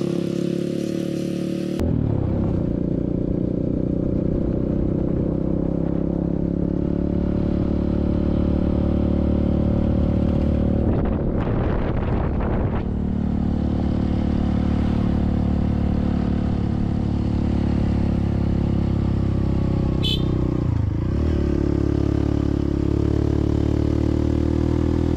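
Motorcycle engine running steadily while riding, with a rougher, noisier stretch about eleven seconds in and a brief dip and recovery in engine pitch about twenty seconds in.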